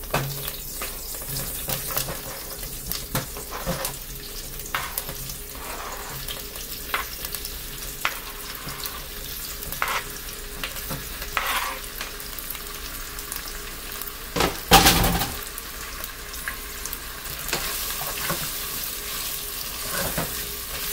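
Slices of pre-cooked sausage sizzling as they fry in olive oil in a pot, with repeated clicks and knocks as slices are scraped off a cutting board with a knife and dropped in. A louder clatter comes about three-quarters of the way through, and near the end a spatula stirs them in the pot.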